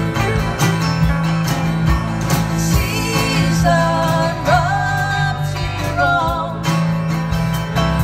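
A live band playing: strummed acoustic guitar, electric bass, electric guitar and a drum kit keeping a steady beat, with a singer's melody line in the middle of the passage.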